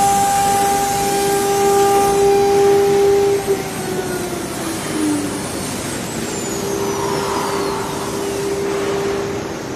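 CNC router's 9 kW air-cooled spindle whining steadily at a high pitch, over a steady rush of air and machinery. About three and a half seconds in, the whine slides down in pitch as the spindle slows, and a few seconds later a steady whine at the same high pitch is back.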